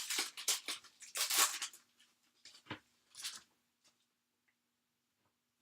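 Trading cards being handled and slid against one another: a quick run of short, hissy rustles over the first two seconds, then two more near the middle.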